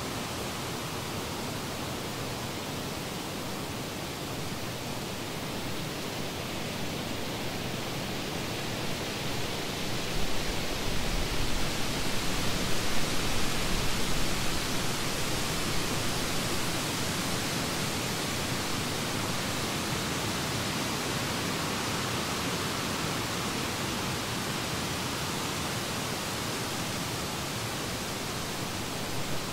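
Steady rushing hiss of noise. It swells louder, with a low rumble underneath, about ten seconds in, then eases back to an even hiss by about sixteen seconds.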